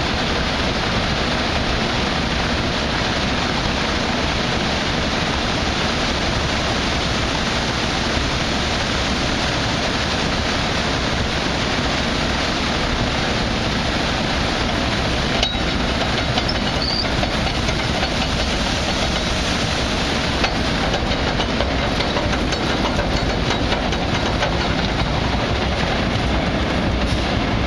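Grain pouring from a dump-bottom trailer's open gates through the grate into a belt unloader, a steady rushing hiss, with the unloader's conveyor running beneath it.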